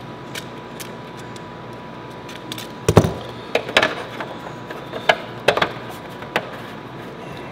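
Hard plastic clicking and knocking as a patch piece cut from printer plastic is pressed and worked into a gap in a cracked plastic sign panel. The clicks come scattered and irregular, the loudest a knock about three seconds in, over a faint steady hum.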